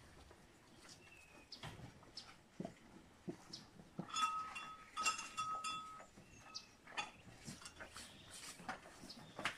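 Cattle eating ground grain feed from a concrete trough: scattered crunches and clicks of muzzles and teeth in the feed. A thin, high call sounds on and off for about two seconds near the middle.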